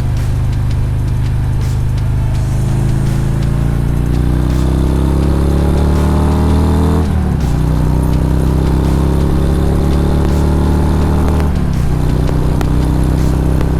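A 2018 Harley-Davidson Road Glide's V-twin engine pulling through the gears as the bike accelerates. The engine note rises, drops at an upshift about seven seconds in, rises again and drops at a second upshift near the end. It is heard through a helmet-mounted microphone with wind noise underneath.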